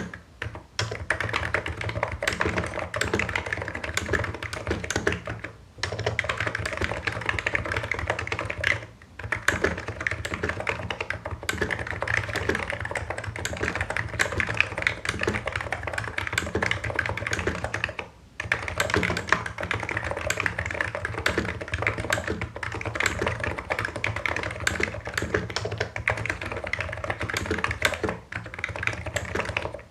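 Steady fast typing on a Hansung Office Master full-size electro-capacitive keyboard with low Cherry-profile keycaps: a dense run of key strokes, broken by a few short pauses.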